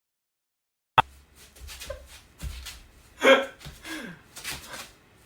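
A man's short, breathy vocal sounds, gasps and exclamations rather than words, after a sharp click about a second in; the loudest is a brief cry a little past halfway.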